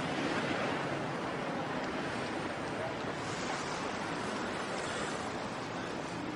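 Steady city street noise of traffic, with cars passing close by.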